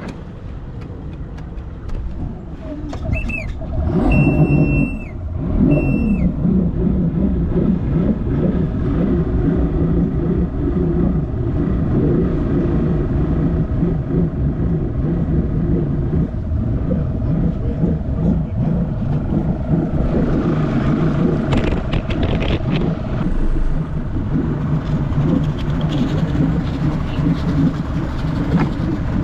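Two-stroke outboard motor starting about four seconds in and then running steadily. Three short high beeps sound as it starts.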